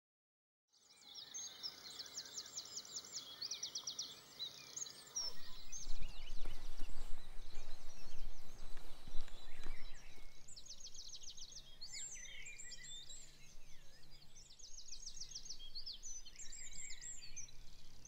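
Songbirds singing outdoors, with repeated fast, high trills throughout. A low rumble and a few sharp knocks come through in the middle.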